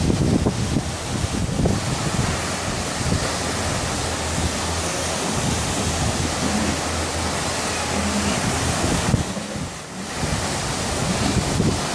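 Wind buffeting the microphone over open sea, mixed with the rushing noise of the water, easing briefly about nine seconds in.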